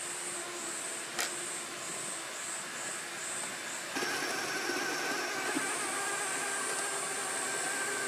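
Insects buzzing in regular pulses, about two to three a second, with a single click about a second in. About halfway through, the pulsing gives way to a steady whine with several fixed tones, typical of the Axial SCX6 RC crawler's electric motor and gears as it creeps over rock.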